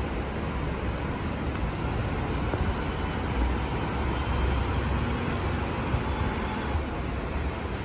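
Rear-loading garbage truck's engine running, a steady low rumble that swells slightly around the middle.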